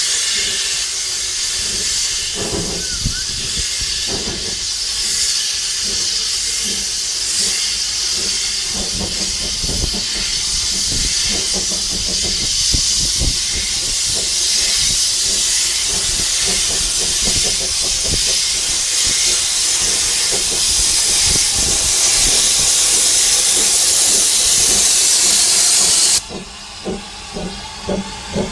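Narrow-gauge steam locomotive Prince, a George England engine, drawing slowly into the platform with a loud, steady hiss of steam escaping low at its front. The hiss cuts off suddenly about two seconds before the end, leaving quieter irregular puffs and clanks.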